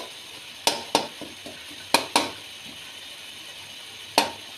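A spoon knocking and scraping against the pot while stirring keema frying in oil, with five sharp clacks over a low, steady sizzle.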